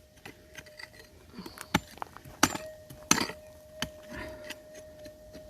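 A few sharp clinks and scrapes of a digging pick striking stony ground, over a steady mid-pitched hum from a Minelab GPZ 7000 metal detector's threshold tone, which grows louder about two and a half seconds in.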